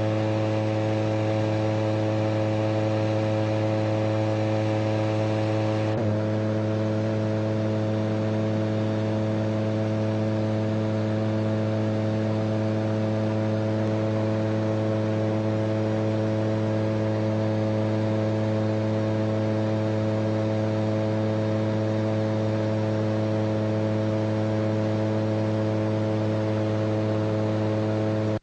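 Shadow microlight aircraft engine and propeller droning steadily at a constant cruise setting, one even low pitch throughout.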